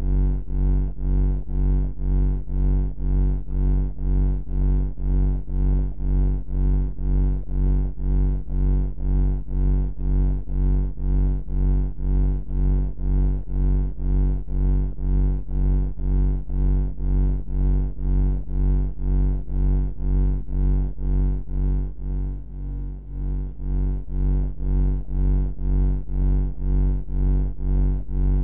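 Deep, steady bunker-style ambient hum that swells and fades in even pulses about twice a second. It dips briefly about two-thirds of the way in.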